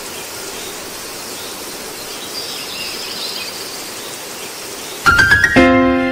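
Steady background hiss, then about five seconds in, background music starts with a quick run of chime-like notes that settle into held tones.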